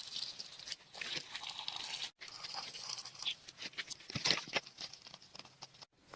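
Crunching, scraping and tearing noises with many sharp clicks, broken off abruptly twice.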